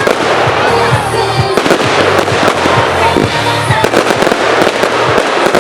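Fireworks going off in quick succession, with repeated bangs and crackling, over loud music with a steady bass line.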